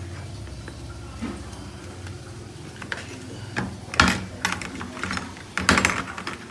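A series of sharp knocks and clatters, the loudest about four seconds in and a quick cluster near the end, over a low steady hum.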